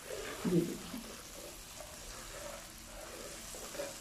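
Butter sizzling in molten caramelised sugar in a frying pan as it is stirred with a spatula to dissolve it, a steady hiss. A brief low thud about half a second in.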